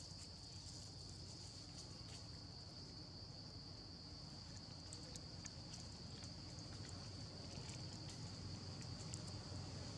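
Faint outdoor ambience: a steady, high-pitched insect drone over a low rumble, with scattered small clicks.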